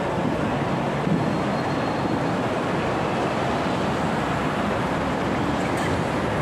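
Steady outdoor city noise: a continuous wash of traffic and street sound with no single event standing out.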